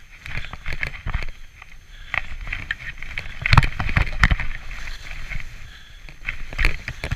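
Skis sliding and turning through soft snow: uneven scraping swishes with scattered clicks and knocks, loudest about three and a half to four seconds in.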